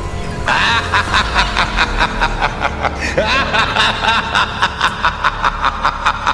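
A person laughing in a long run of rapid snickering bursts, about five a second, starting about half a second in, over background music.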